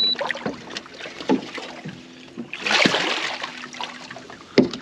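Water splashing against the side of an aluminium boat as a hooked turtle is pulled in by hand at the surface. The splashing comes in a louder burst about three seconds in, over a faint steady low hum, and there is a sharp knock near the end.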